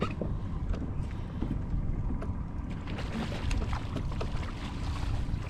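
Wind buffeting the microphone in a steady low rumble, with scattered light clicks and splashes as a hooked bass is fought at the surface beside a kayak.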